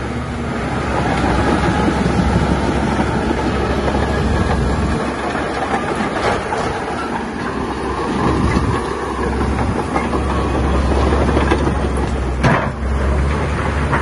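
Heavy diesel earthmoving machine running, with a steady low engine hum and a continuous rattling clatter. There is one sharp knock about twelve and a half seconds in.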